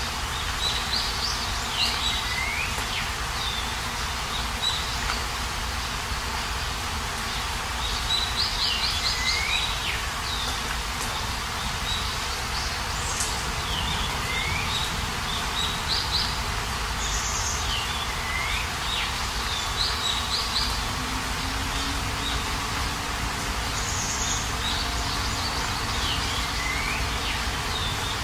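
Steady rain hiss with small birds chirping over it: short rapid trills and quick chirps that recur every few seconds.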